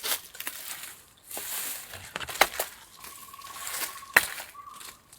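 Rustling and crackling of sitharathai (lesser galangal) leaves and stalks being handled and laid down, with two sharp clicks about two and four seconds in.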